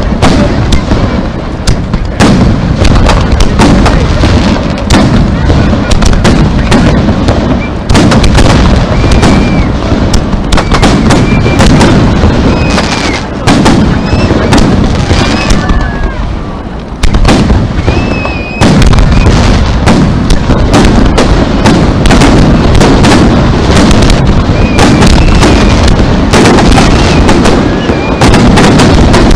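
Aerial firework shells bursting in a rapid barrage: dense, overlapping bangs and crackle, very loud, with a brief lull about two-thirds of the way through before the volley picks up again.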